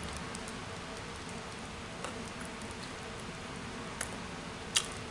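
A few faint, sharp crunches, about two seconds in and twice near the end, over quiet room tone: biting and chewing a crisp triple-dipped chocolate malt milk ball.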